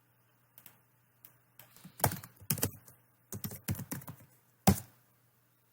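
Computer keyboard typing: a few scattered key clicks, then a quick run of keystrokes for about two and a half seconds, and one sharper click near the end.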